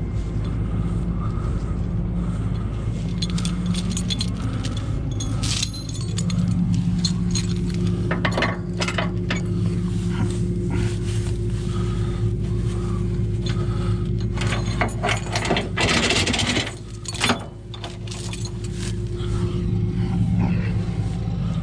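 A truck engine running steadily, with scattered metal clinks and scrapes and a brief louder burst of noise about sixteen seconds in.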